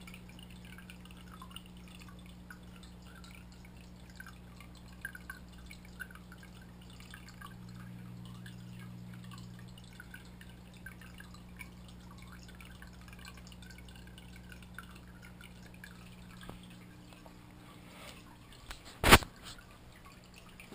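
Aquarium water heard through a submerged camera housing: a steady low hum with small dripping, bubbling sounds. Near the end comes one loud, sharp knock.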